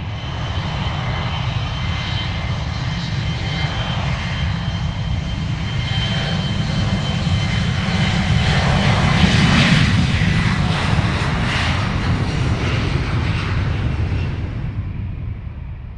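Fixed-wing aircraft flying past: a deep engine rumble with a steady high whine, building to its loudest a little past halfway, then fading away.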